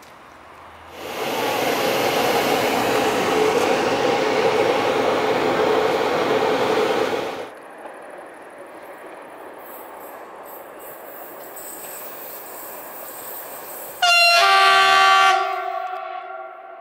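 Siemens Vectron electric locomotive standing close by with a loud steady rushing of its running machinery that stops abruptly after about six seconds. Near the end, an approaching locomotive sounds its horn once, a loud multi-tone chord held for over a second that echoes away.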